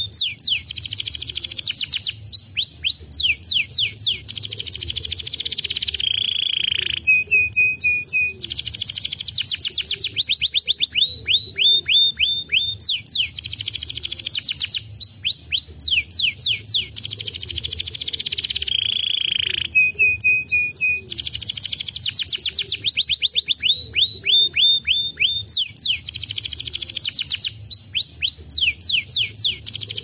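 Domestic canary singing a fast, continuous song of rapid trills made of downward-sweeping notes and buzzy rolls, with a short held whistle about seven seconds in and again about twenty seconds in. It is the kind of canary song played to set other canaries singing.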